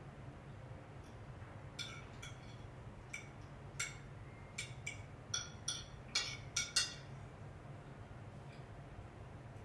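Fork clinking and tapping against a plate while eating: a dozen or so light, irregular clinks over several seconds, over a steady low hum.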